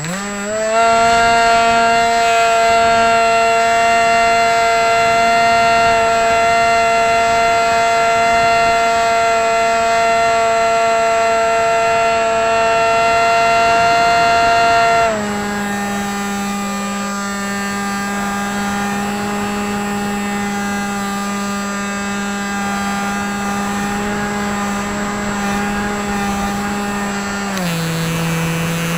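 Hawking 2826 2200 Kv brushless outrunner motor spinning a 6x4 APC pusher propeller on an AXN Floater-Jet RC plane, heard close up from the onboard camera. It is throttled up in the first second to a steady high-pitched whine, eased back to a lower steady pitch about halfway, and dropped lower again near the end.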